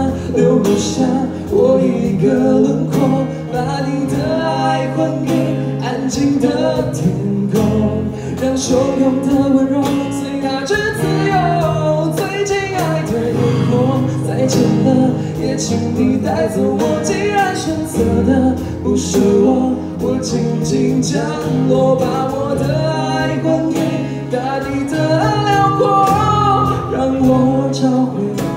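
A live acoustic band playing a Mandarin pop ballad: singers over strummed acoustic guitars, with a bass guitar and cajon keeping a steady beat.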